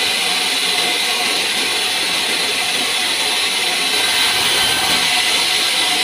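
Vertical band sawmill running and sawing pine: a loud, steady machine whir with a constant high whine from the blade.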